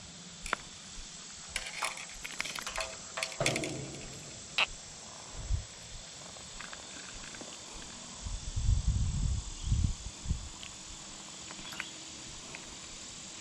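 Insects drone steadily, with scattered small clicks and rustles of handling. A burst of low, loud thumps comes about eight to ten seconds in.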